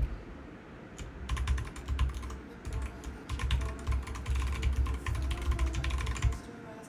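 Typing on a computer keyboard: a quick, dense run of key clicks starting about a second in and stopping shortly before the end.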